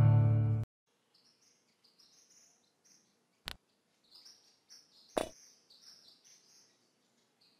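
Acoustic guitar music stops abruptly in the first second, giving way to birds chirping. A sharp click comes about three and a half seconds in, and about five seconds in a louder knock with a short rattle as a golf ball drops into the cup.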